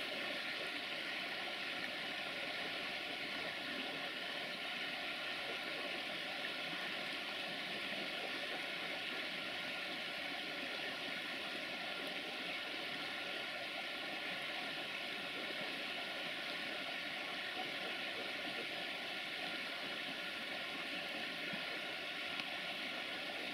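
Steady, even rushing hiss with no rhythm and no changes.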